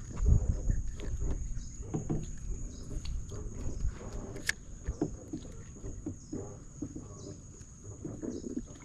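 Fishing rod and gear being handled on a wooden dock: a heavier thump just after the start, then scattered small knocks and clicks, over a steady high-pitched buzz.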